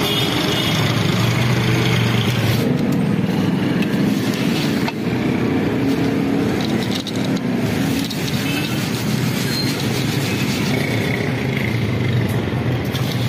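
Peanuts in their shells being stirred and scooped through hot sand in a large metal kadai with a perforated metal ladle: a steady scraping, rattling rustle, with a few light knocks of the ladle against the pan, over a constant low rumble.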